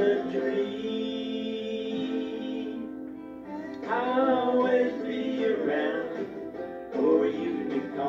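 A man singing with a strummed acoustic guitar: he holds one long note for the first few seconds, breaks briefly, then sings on over the guitar.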